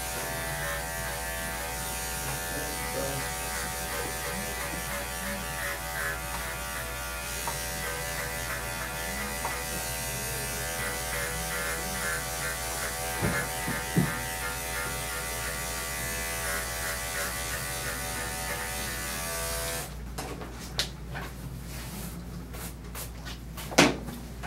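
Electric dog-grooming clippers running steadily as they clip a dog's coat, switching off about four seconds before the end. A few sharp knocks and clicks follow.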